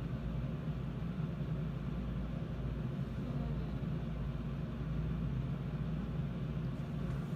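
Steady low hum with a faint hiss and no distinct events: background room noise.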